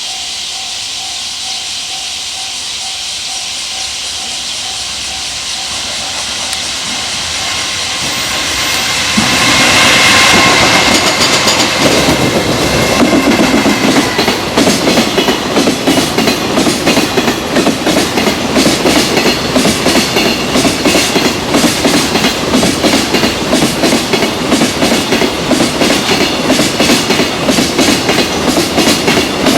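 An electric freight train passes at speed. A steady hiss swells about nine seconds in as the locomotive goes by with a high whine. Then a long string of wagons beats out a rapid, even clickety-clack over the rail joints.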